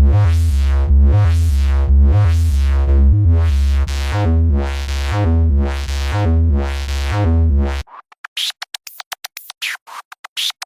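Electronic synthesizer sample: a bass-heavy synth riff with a bright swell about once a second. About eight seconds in it cuts suddenly to a fast, stuttering chopped synth effect with short sweeps in pitch.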